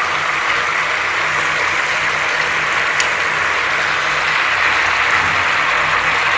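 Whole masala chicken frying in a kadai on high flame, its leftover cooking liquid, rendered fat and oil bubbling and sizzling steadily while the liquid boils down. There is a single light click about three seconds in.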